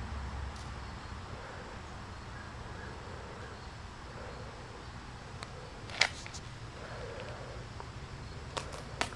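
Quiet outdoor background hum with a few short sharp clicks: the loudest about six seconds in, and two more near the end.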